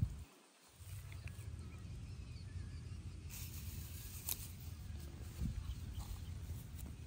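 Outdoor ambience: a steady low rumble with a few faint clicks, dropping out briefly just after the start.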